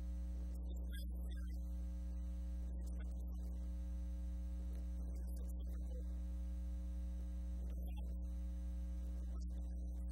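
Steady electrical mains hum: a low buzz with a row of higher overtones, unchanging throughout.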